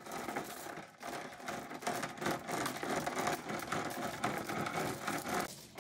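Galvanized anchor chain fed by hand into a boat's anchor locker, its links clattering continuously over the hatch rim and onto the pile below. The rattle dips briefly about a second in and stops just before the end.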